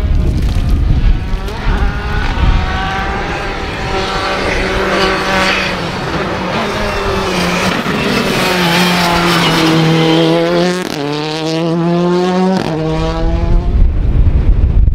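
Rally cars at speed on a tarmac stage road, engines revving high and dropping sharply with quick gear changes. Among them is a Citroën C3 Rally2 with its turbocharged 1.6-litre four-cylinder.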